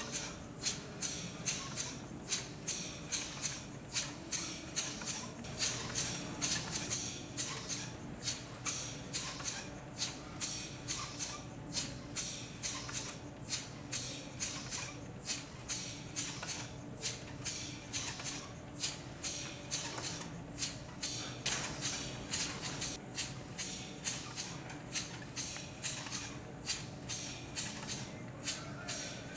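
LEGO pneumatic piston engine, driven by nitrogen gas boiling off liquid nitrogen, puffing its exhaust in a steady, even rhythm of sharp hisses, about two to three a second.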